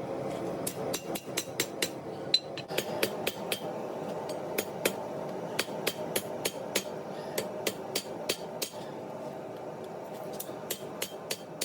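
Hand hammer striking leaf-spring steel being forged into a knife blade, sharp ringing blows in runs of several, about three a second, with short pauses between. A steady noise runs underneath.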